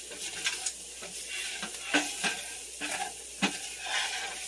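Vegetables frying in oil and flour in a pot, sizzling steadily while being stirred, with irregular scrapes and knocks of the stirring utensil against the pot.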